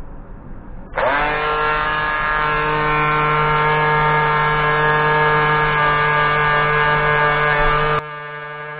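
Black & Decker Mouse detail sander, fitted with 120-grit paper, starting up about a second in, its motor rising briefly in pitch and then running with a steady buzzing hum. Near the end the sound drops abruptly in level and runs on quieter.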